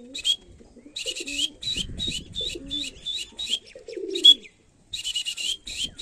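Plastic whistle blown in runs of short, rapid high pips, about four or five a second, with a pause before a last run near the end. It is the feeding-call whistle, used to teach a hand-fed pigeon chick that the whistle means food is coming.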